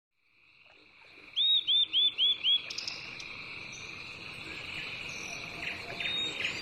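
Rural outdoor ambience fading in from silence: a steady high-pitched chorus of calling animals, with a bird giving five quick arching chirps about a second and a half in and more chirps near the end.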